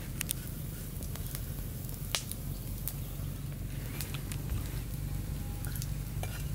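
Scattered small clicks and light rustling as fresh leaves are picked by hand and dropped into a ceramic bowl, over a steady low hum.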